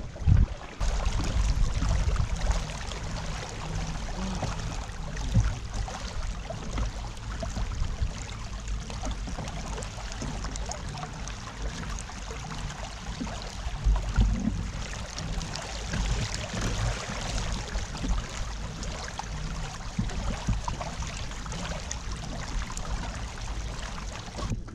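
Water trickling and splashing along a fishing kayak's hull as it moves, over a steady low rumble.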